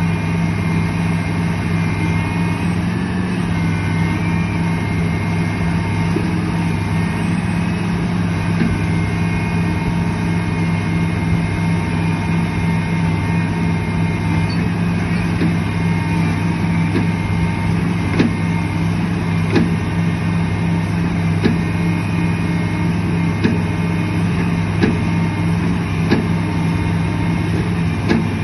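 Heavy diesel engine running at a steady speed, with a few short sharp knocks now and then in the second half.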